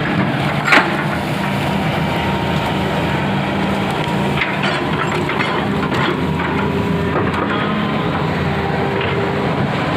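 Hitachi excavator's diesel engine running steadily under work, with a sharp knock about a second in and lighter clanks and knocks around the middle.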